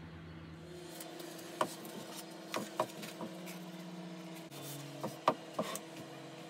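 Hands working inside a small pine box, pressing its self-adhesive lining down: a scattering of light, sharp taps and knocks with some rubbing between them. A steady low hum runs underneath.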